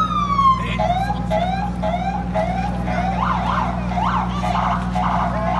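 Emergency vehicle siren changing its pattern: a long tone falls away at the start, then a run of short rising chirps, then quick up-and-down warbles. A steady low engine hum runs underneath.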